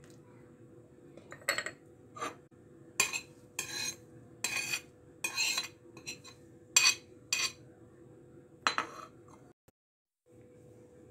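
A metal spoon clinking and scraping against a cut-glass bowl as ingredients are tipped in, about ten short sharp strokes spread over several seconds. The sound cuts out briefly near the end.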